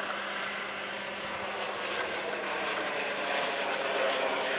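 Turbine jet engine of a delta-wing aircraft flying past overhead: a steady rushing roar that grows gradually louder.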